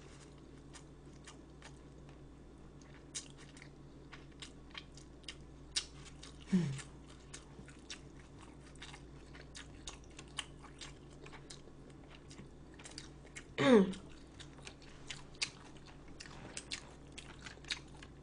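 A person chewing food close to the microphone: a run of small wet clicks and mouth sounds. Twice a short voiced sound falls in pitch, once about six seconds in and again, louder, near fourteen seconds.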